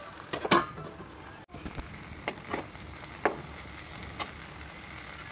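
A metal spatula scraping and clicking against a metal kadai as cooked okra and onions are stirred, a handful of short scrapes and knocks over a faint steady hiss.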